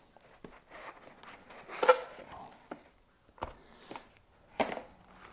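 Cardboard shipping boxes being handled and set down on a tabletop: a few dull knocks and scrapes, the loudest about two seconds in, with light rustling between.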